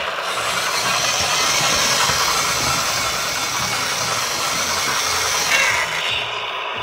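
Battery-powered Road Rippers toy Caterpillar wheel loader running: a steady engine-rumble sound effect from its small built-in speaker, with the whir of its drive motor and gears. The sound shifts briefly near the end.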